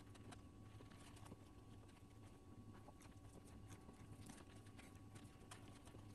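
Near silence: faint, scattered clicks and rustles of hands tying cord onto camouflage netting over a cloth hat, over a steady low hum.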